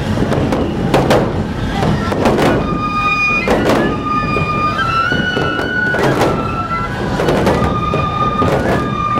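Neputa festival music: several shinobue bamboo flutes play a stepping melody over drum beats that land about once a second. The flute line comes in clearly about two and a half seconds in.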